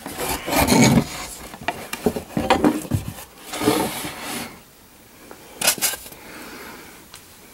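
Handling noise of ceiling-fan parts in their cardboard and foam packaging: irregular rubbing, scraping and light clattering for about four seconds, then a sharp knock about six seconds in, and quieter after.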